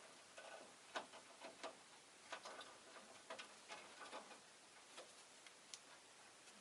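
Faint, irregular clicking and tapping from rosy-faced lovebirds moving and pecking about their cage, with one brief high peep near the end.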